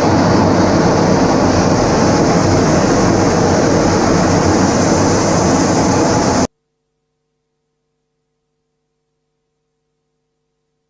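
A steady, dense roar of aircraft in-flight noise, heaviest in the low end. It cuts off abruptly about six and a half seconds in, leaving near silence with a faint hum.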